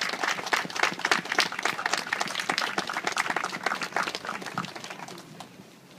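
Audience applauding, a dense run of clapping that thins out and dies away about five seconds in.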